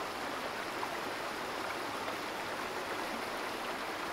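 Steady rushing sound of flowing water, like a running stream, with no distinct splashes.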